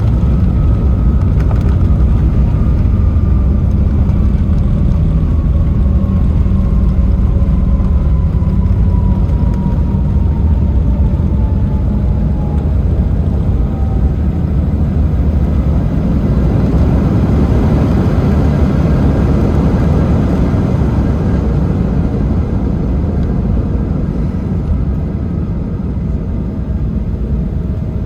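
Cabin noise inside an Embraer 190 on the ground after landing: a heavy, steady low rumble with the whine of its CF34 turbofans falling slowly in pitch over about the first half. The rumble swells for a few seconds a little after the midpoint.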